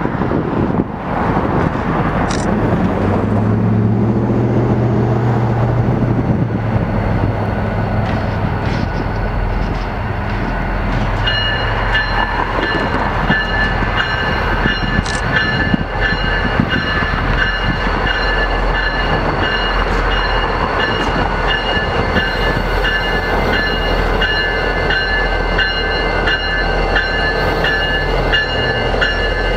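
Diesel locomotives BNSF 3188 and BN 2740 running and rolling slowly past. About ten seconds in, a locomotive bell starts ringing steadily and goes on to the end as the lead unit comes alongside.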